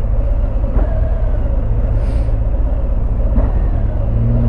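Harley-Davidson Fat Bob's Milwaukee-Eight 107 V-twin idling at a stop, a steady low rumble, with a short hiss about two seconds in. Near the end the engine note begins to rise as the bike pulls away.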